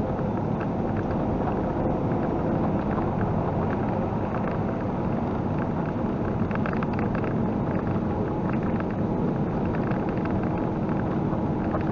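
Inside a semi truck's cab while cruising downhill on the highway: steady diesel engine drone mixed with road and wind noise. A faint steady tone joins in about seven seconds in.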